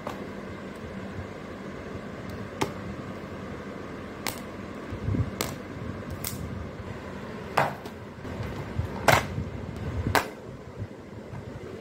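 Plastic marker pens clicking and clattering as they are picked up and put away into a plastic pen case: a scattered series of separate sharp taps, about nine in all, over a faint steady background hum.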